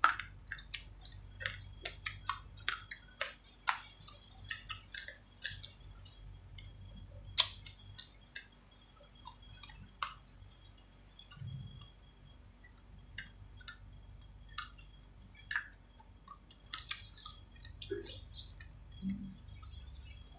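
Close-up chewing of uncooked rice grains: sharp, irregular crunches and clicks as the grains crack between the teeth. They come thickly at first, thin out in the middle, and pick up again near the end.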